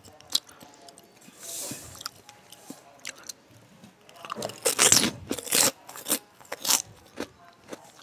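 Close-up eating sounds: wet chewing and small mouth clicks, then loud, sharp crunching from about halfway through as a fried kerupuk cracker is bitten and chewed.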